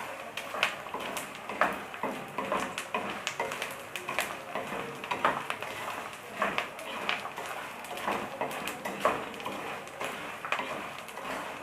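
Gond (edible gum) frying in hot desi ghee over low heat: a steady sizzle with frequent, irregular sharp crackles and pops.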